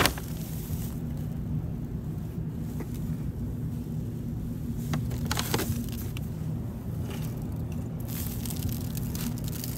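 A brown paper bag of bagels crinkling and rustling as a hand reaches in, about halfway through and again near the end, over a steady low rumble of street traffic. A sharp click comes right at the start.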